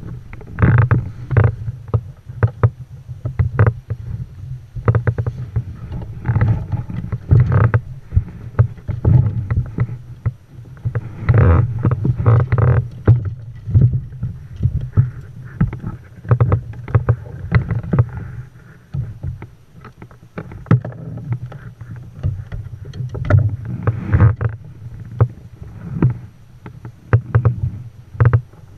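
A fishing kayak moving through calm water: irregular splashes, sloshing and low knocks of water against the hull and paddle.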